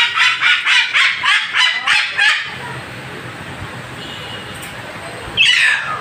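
White cockatoo screeching angrily: a rapid run of harsh calls, about four a second, for the first two and a half seconds, then after a lull one loud screech falling in pitch near the end.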